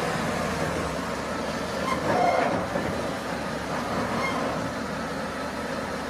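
Heavy multi-axle mobile crane driving slowly past, its diesel engine and many tyres giving a steady rumble, with a short squeal about two seconds in.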